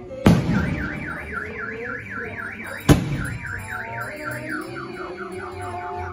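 Two loud firecracker bangs about two and a half seconds apart, each with a short echoing tail. Just after the first bang a car alarm starts a rapid warbling siren, about five up-and-down sweeps a second, fading toward the end.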